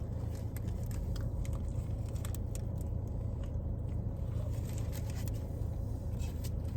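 Chewing and crunching on food, with scattered small clicks and mouth sounds, over a steady low hum.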